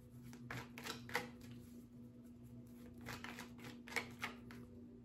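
Tarot cards being shuffled by hand: two short runs of soft card slaps and riffling rustles, the second about three seconds in, over a faint steady hum.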